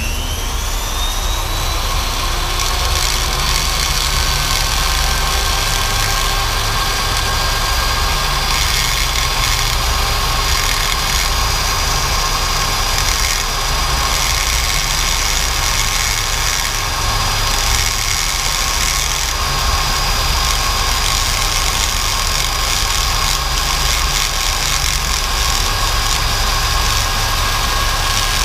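Flex-shaft rotary tool spinning up with a rising whine over the first two seconds, then running at a steady speed as its bit smooths the tip of a decapped stock LS fuel injector.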